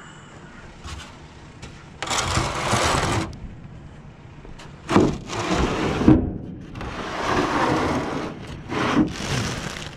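Rustling and scraping of junk being handled in a curbside trash pile, in three bursts, with a few sharp knocks.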